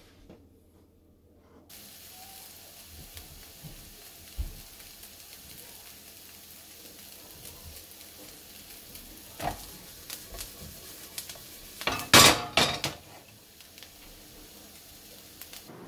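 Chopped onion frying in a non-stick pan, a steady sizzle that starts about two seconds in. A few clinks and knocks come over it, the loudest cluster about twelve seconds in.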